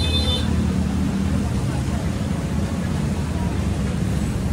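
Steady low mechanical rumble with a faint brief high-pitched tone in the first half-second.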